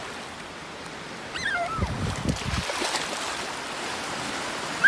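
Small lake waves washing onto a sandy shore, with water splashing around a toddler's feet as he wades into the shallows. A short high falling cry sounds about a second and a half in, and another sharp high cry starts right at the end.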